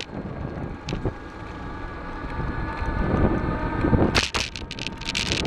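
Rolling noise of the vehicle carrying the camera as it travels over brick paving: a continuous low rumble with a faint steady whine, and a run of sharp rattles starting about four seconds in, with wind buffeting the microphone.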